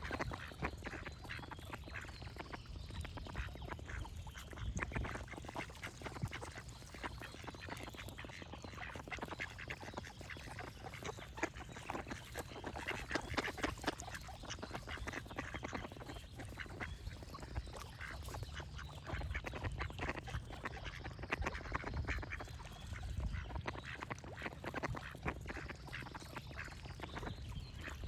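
Ducks quacking over and over in quick succession, with birds singing faintly behind.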